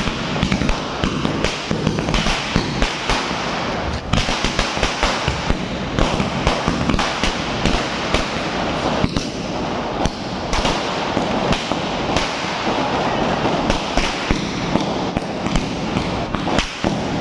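A long string of firecrackers, a 10,000-cracker chain, going off in a dense, unbroken rapid-fire crackle of bangs as the burning point works along the chain.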